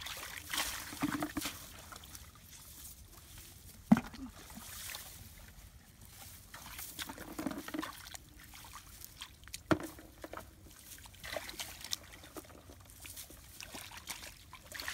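Muddy water sloshing and pouring as a ditch is bailed out with buckets, with two sharp knocks, one about four seconds in and another about six seconds later.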